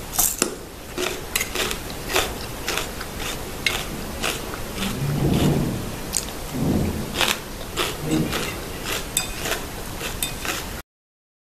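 Metal spoon and fork clinking and scraping against a ceramic bowl as fried rice is mixed and scooped: a string of light, sharp clicks over a steady hiss, with a couple of duller, muffled low sounds about halfway through. The sound cuts off abruptly near the end.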